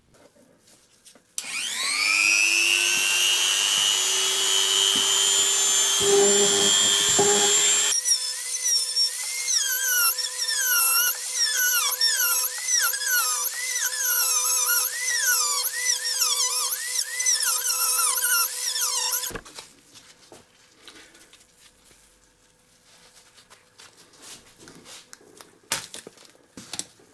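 A small handheld rotary tool with a cutting disc spins up with a rising whine, then runs at a steady pitch. From about eight seconds in, the disc cuts into the remote's plastic case and the whine wavers up and down as the load changes. It stops suddenly after about nineteen seconds, and faint clicks and scraping follow as the case is worked open.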